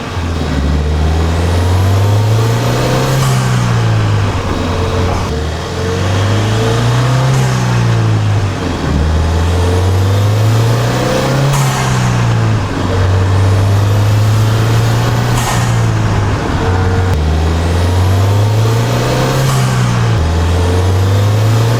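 2016 Ford Fiesta ST's 1.6-litre EcoBoost turbocharged four-cylinder heard at the intake through a K&N high-flow air filter, accelerating repeatedly through the gears: the engine note climbs on each pull and drops at each shift. A high turbo whine rises over each pull and cuts off suddenly as the throttle lifts, with the blow-off valve venting.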